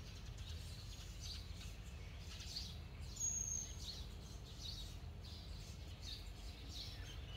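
Small birds chirping every second or so over a low, steady outdoor rumble, with one brief high-pitched tone about three seconds in.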